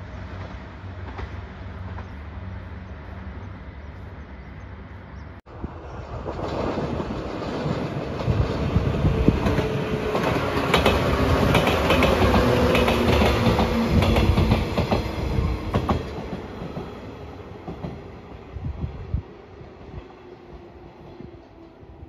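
A JR 115-series electric train passes close by. It rises to a loud rush of wheels clattering over the rail joints, with a steady hum, then fades as it pulls away. Before it, a low steady rumble runs for the first five seconds and breaks off abruptly.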